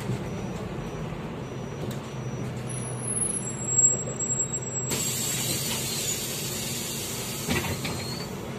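Inside a MAZ-203 city bus: the diesel drone runs low and steady, a thump comes a little before four seconds, then a loud hiss of compressed air starts abruptly about five seconds in and runs for about three and a half seconds, with a knock near its end.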